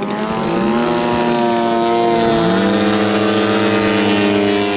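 Giant-scale RC Pitts Model 12 biplane's 150cc gas engine and propeller, opened up in a few quick rising surges, then held at a steady high pitch at full power while the plane hangs nose-up.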